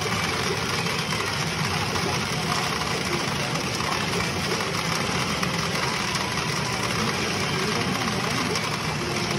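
Steady, dense din of a pachinko parlour: many machines running and steel balls rattling together, with no single sound standing out.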